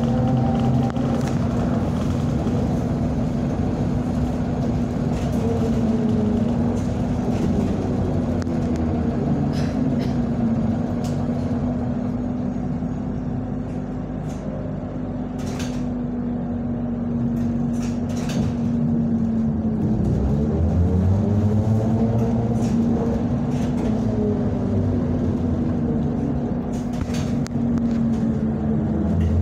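Inside a ZiU-682V-012 trolleybus on the move. The traction motor's whine rises and falls in pitch as the trolleybus speeds up and slows down, over a steady hum and low road rumble, with occasional rattles and knocks.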